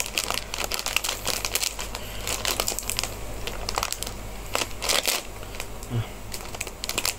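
A plastic snack bag crinkling and crackling as it is handled and torn open, with many quick, sharp crackles.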